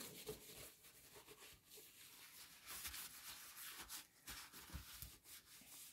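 Faint rubbing of a dry cloth wiped over the glazed surface of a porcelain bowl, in soft irregular strokes.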